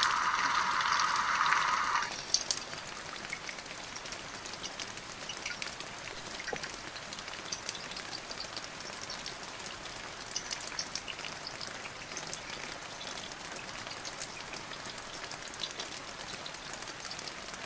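Steady rain falling, with many individual drops ticking through an even hiss. The first two seconds are a louder, denser rush of rain before it settles to a steady level.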